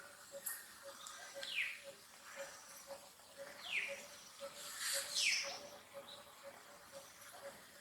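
Short high animal calls, each sliding down in pitch, repeated every second or two, the loudest about five seconds in. A faint steady ticking runs underneath at about two a second.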